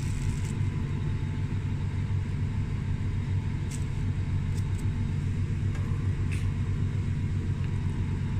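Steady low mechanical rumble, with a few faint light ticks.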